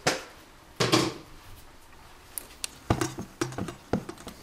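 Two short knocks near the start, then from about three seconds in a wire whisk clicking rapidly and unevenly against a stainless steel mixing bowl as it beats cake batter.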